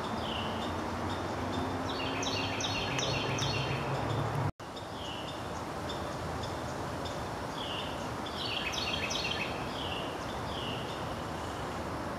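Birds calling outdoors: a short falling call repeated about twice a second, broken twice by a brief flurry of quicker, higher chirps, over a steady background hum. The sound cuts out for an instant about four and a half seconds in.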